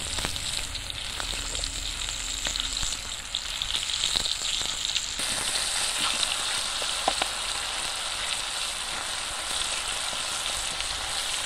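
Flour-dredged birds deep-frying in a pot of hot oil: a steady sizzle with scattered crackling pops, turning brighter and hissier about five seconds in.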